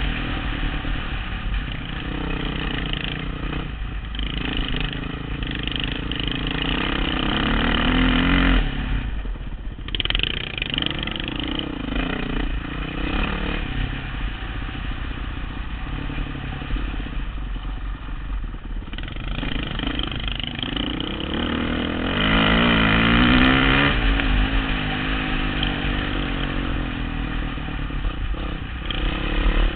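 Dirt bike engine running under load on a trail ride, heard from the rider's helmet camera, with the throttle rolling on and off. The engine note drops away briefly twice, then the revs climb sharply about two-thirds of the way through.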